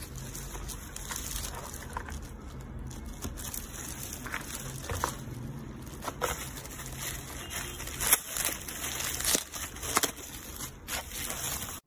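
Plastic bubble wrap and blister packaging crinkling as they are handled, with many sharp crackles, a few louder ones in the second half.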